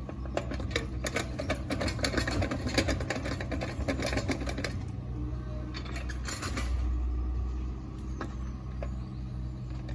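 An engine running steadily under dense, irregular clicking and crackling.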